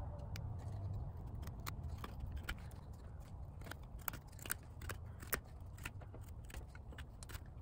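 Small carving blade of a Schrade Old Timer folding whittling tool shaving a stick of wood: faint, irregular little scrapes and clicks as thin curls are cut off, several a second.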